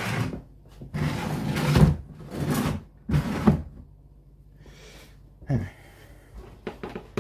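Handling noises on a Hisense American-style fridge freezer: a run of short scraping, rustling bursts with a couple of sharp knocks, like a door or panel being moved. A faint steady hum runs underneath.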